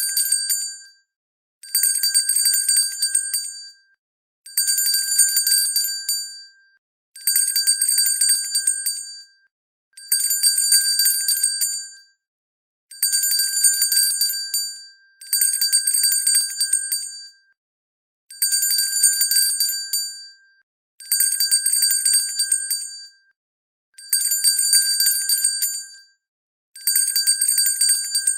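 Hand bell shaken in bursts of rapid clapper strikes. Each burst rings for about two seconds and the bursts come about every three seconds, with a short silence between them.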